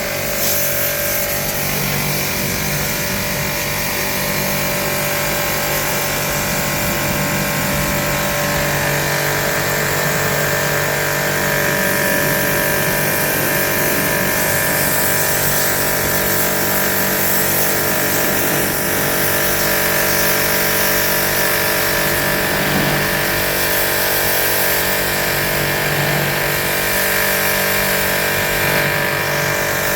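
An electric motor running steadily, with a constant whine over a rushing hiss.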